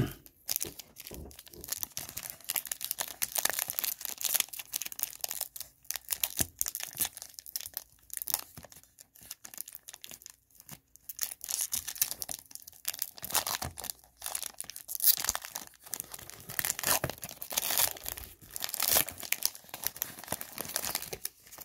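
Foil wrapper of a 2020 Panini Donruss football card pack being torn open and crinkled by hand: an irregular crackle of tearing and rustling foil.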